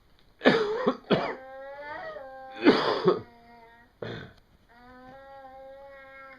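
A young child making noises with the voice: four harsh, cough-like bursts broken up by held, steady voice tones, the last tone lasting about a second and a half near the end.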